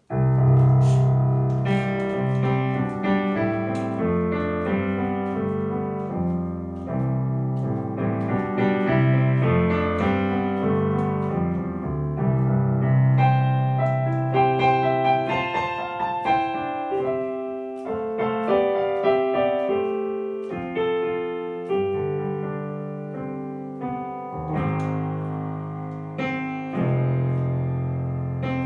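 Yamaha P-515 digital piano being played: a flowing passage of chords over held bass notes, starting abruptly and easing off slightly near the end.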